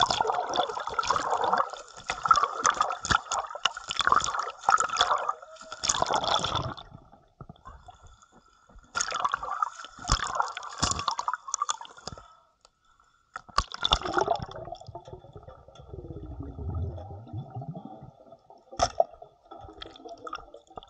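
Water splashing and sloshing around a camera bobbing at the surface, in bursts over the first half. It then gives way to quieter, muffled underwater bubbling and gurgling.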